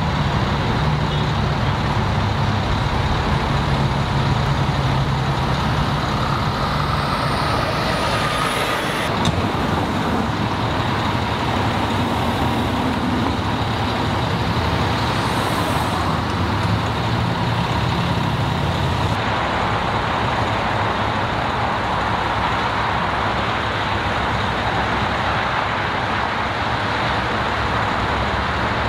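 Steady road traffic noise: vehicle engines and tyres on the road, with a low engine hum and a brief rising whine about seven to nine seconds in.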